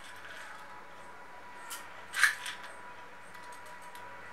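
Roasted gram (hard dried split chickpeas) dropped into a stone mortar: a few short clattering clicks of the dry grains landing on stone, the loudest about two seconds in, with lighter ticks after.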